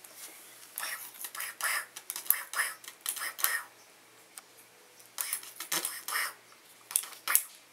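Wheeled PVC-pipe walker carrying a kitten, rattling and clattering in short irregular bursts as its caster wheels and frame move over a hard floor, with a few sharp clicks near the end.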